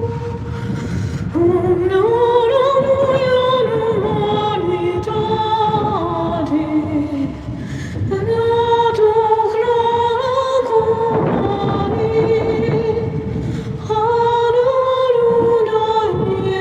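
Wordless a cappella singing: layered voices hold long notes that slide slowly up and down, in phrases a few seconds long, with brief breaks about halfway through and again near the end.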